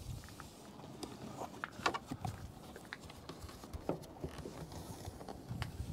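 Faint, scattered light clicks and taps of hand work on the pickup, with a small cluster of them about two seconds in.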